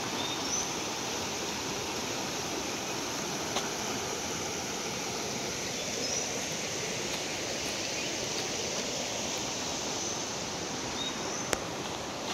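Shallow rocky stream rushing over stones and small rapids: a steady, even rush of water. A single sharp click sounds near the end.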